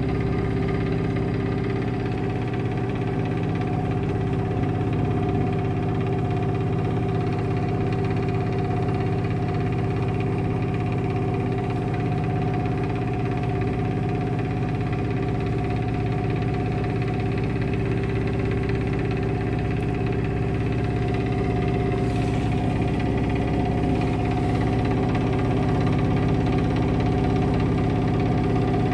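Sailing yacht's auxiliary engine running steadily at a constant speed, motoring with the sails furled in a calm; a steady drone that holds the same pitch throughout.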